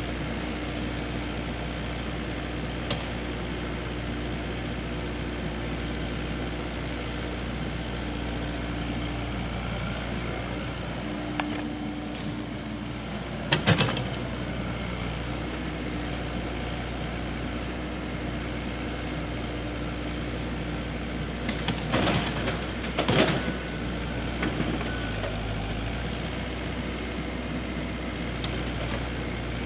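Excavator engine running steadily, with a sharp knock about fourteen seconds in and two or three more close together around twenty-two to twenty-three seconds.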